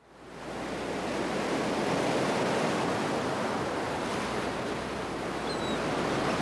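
Ocean surf washing steadily under a pier, fading in from silence at the start. Two faint high chirps about five and a half seconds in.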